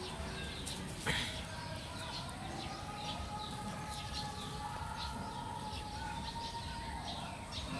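Small birds chirping over and over, several quick downward chirps a second. Under them runs a low outdoor rumble and a long faint tone that slowly rises in pitch through the middle.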